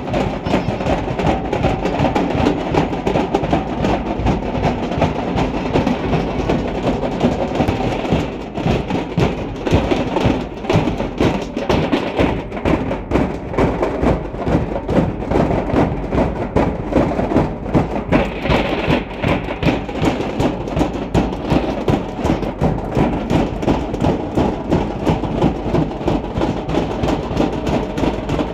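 Large bass drums and smaller drums beaten together in a loud, steady rhythm of several strokes a second.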